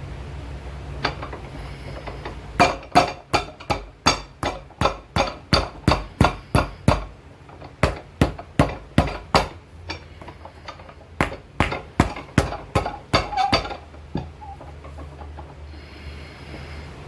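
A hammer pounding a freshly glued sole and lift onto a boot, setting the bond. The sharp strikes come about three a second in three runs, with short pauses between runs, over a steady low hum.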